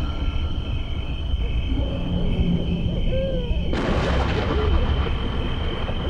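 Horror sound-effect ambience: a low rumbling drone under a steady high tone, with a few short owl hoots. A sudden loud hiss breaks in a little before four seconds in and carries on.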